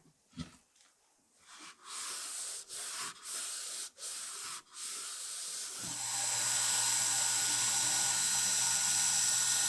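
A cloth rubbed in repeated strokes along a wooden axe handle, then from about six seconds a small belt grinder running steadily with a hum and a hiss as the axe blade is held against the belt.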